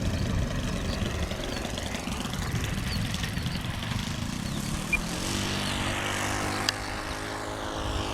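A radio-controlled model aeroplane's O.S. 95 glow engine running in flight, its pitch sliding as the plane passes. Wind rumbles on the microphone at first; the engine's steady tone comes through clearly about five seconds in.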